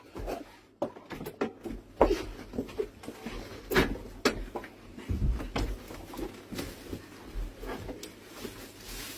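A scatter of irregular clicks and knocks, with a low thumping about five seconds in.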